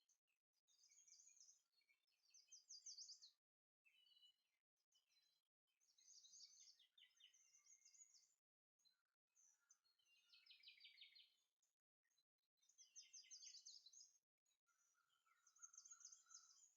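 Faint birdsong: short high trilled phrases, many falling in pitch, repeating every couple of seconds.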